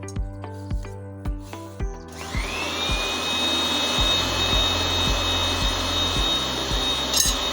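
Background music with a steady beat. About two seconds in, an electric motor starts up with a rising whine that settles into a steady high whine over a loud rushing hiss.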